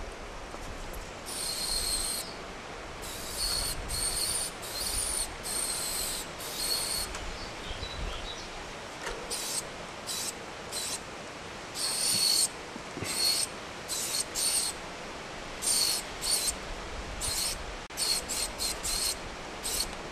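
Aerosol spray paint can spraying in many short bursts against a freight car's side: a hiss with a thin whistling tone from the nozzle, each burst lasting from a fraction of a second to about a second, with short pauses between.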